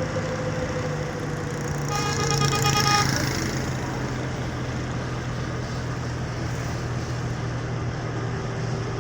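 A road vehicle's engine hums steadily, and about two seconds in a vehicle horn honks once for about a second.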